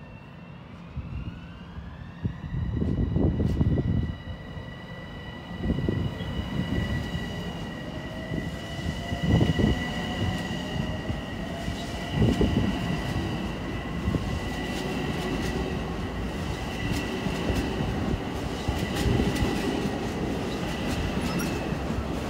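A Long Island Rail Road Bombardier M7 electric multiple-unit train running into the station and slowing alongside the platform. Under a steady rumble of wheels on rail there is a high whine that rises in pitch over the first couple of seconds and then holds, and there are several heavy knocks as the wheels cross rail joints.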